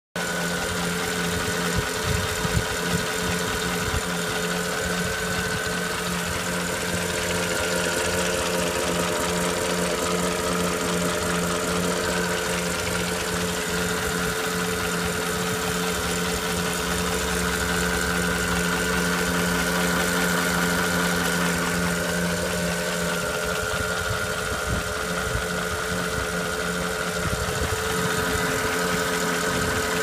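Porsche Cayenne Turbo (957) 4.8-litre twin-turbo V8 idling steadily with a quick, regular ticking from the engine, which the owner fears may be piston slap.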